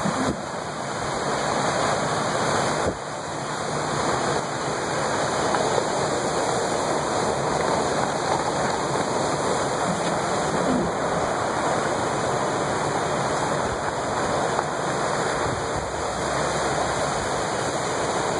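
Steady rushing noise of Hurricane Sandy's storm: wind-driven rain and flood water. The rush dips briefly about three seconds in.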